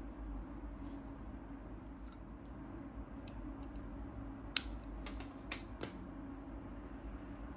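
Small plastic clicks and taps from a USB-C cable being handled and plugged into an Apple 20W USB-C power adapter: one sharp click about halfway through, then a few lighter ones, over a steady low hum.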